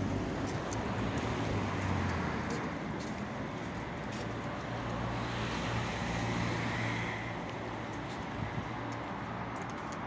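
Steady road traffic noise with the low hum of an engine running.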